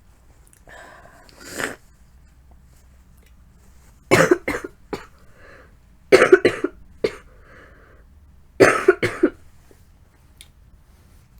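A person with a head cold coughing in three short fits of two to four quick coughs each, about two seconds apart, after a breath in about a second and a half in. The cough comes from a cold that has settled in the throat.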